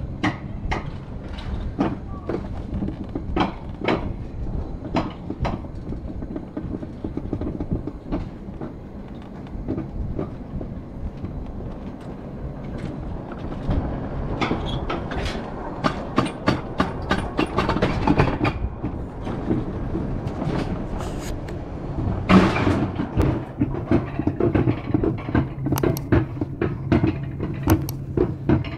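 Summer toboggan sled running down its track, with a steady rumbling hum from the wheels and a rapid, irregular clacking as it passes over track joints. A brief louder rush comes about three quarters of the way through.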